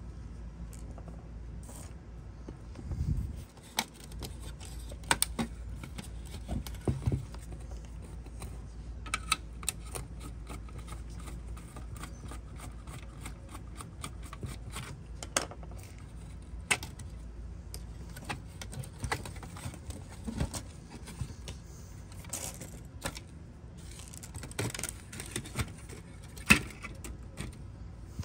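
Small metal clicks, ticks and scrapes of a screwdriver working the screws out of a diecast Jaguar XK8 model's metal baseplate, with light knocks as the parts are handled. The clicks come irregularly all through, with a louder knock about three seconds in.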